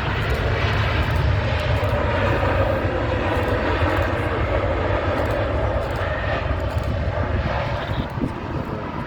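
Jet airliner passing close by, its engines a loud rumble and roar with a tone that slowly drops in pitch as the noise eases off after the first few seconds.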